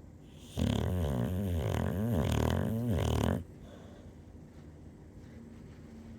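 One loud snore lasting about three seconds, starting about half a second in, its pitch wavering up and down several times.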